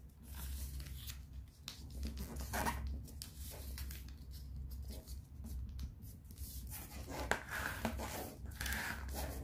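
A square of origami paper being folded by hand: irregular rustling and crinkling as the corners are folded in to the centre and the creases pressed flat, over a low steady hum.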